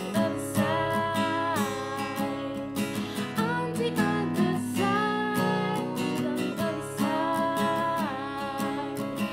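A woman singing long held notes that slide down at their ends, accompanying herself on a strummed Ibanez acoustic guitar.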